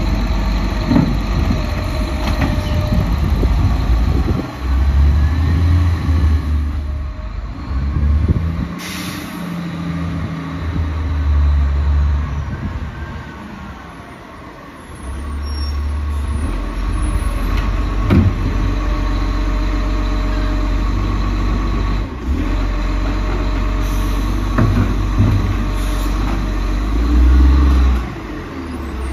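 Iveco side-loader garbage truck's diesel engine running and revving as its hydraulic side arm lifts and empties wheelie bins, with a brief air-brake hiss and a few sharp clunks. The engine fades for a moment, then grows louder again as the truck drives back closer.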